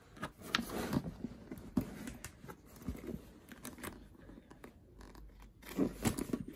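Vintage Louis Vuitton Keepall 60 duffle bag being handled and flexed: its stiff coated canvas and leather rustle and crease, with irregular clicks and scrapes, getting louder near the end.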